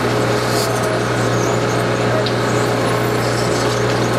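SSI 600E slow-speed, high-torque dual-shaft electric shredder running and shearing EPDM rubber door and windshield trim. Its electric drive gives a steady hum, with scattered squeaks and clicks from the rubber being cut.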